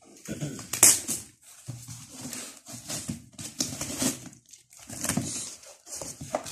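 Cardboard carton being opened by hand: the taped corners are slit and a flap is pulled back, in irregular bursts of scraping and rustling, with a sharp crackle about a second in.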